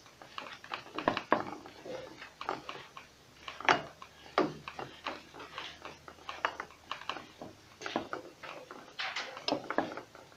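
Irregular light clicks and knocks of metal parts being handled as a nut is turned off a submersible pump's pipe fitting by hand, with a few louder knocks among them.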